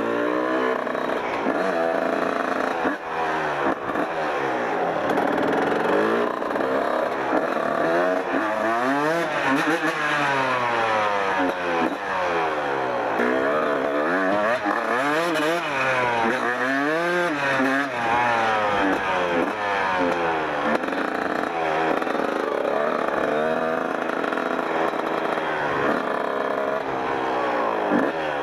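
Kawasaki KX 125 single-cylinder two-stroke engine under way, revving up and down over and over, its pitch climbing and dropping through the gears.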